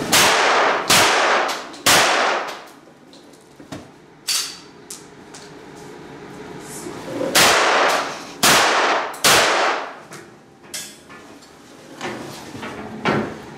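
Groza-041 traumatic (rubber-bullet) pistol firing: three quick shots, a pause of about five seconds with a few small clicks and clanks, then another three quick shots, each with a short echoing tail.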